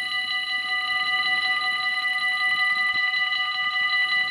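Electric warning bells of a Dutch railway level crossing ringing in a rapid, continuous metallic ring. This signals that the crossing is activated and the half-barriers are coming down for an approaching train.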